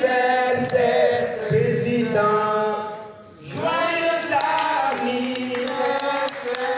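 Live singing in long, held notes that bend at their ends, with a short break about three seconds in.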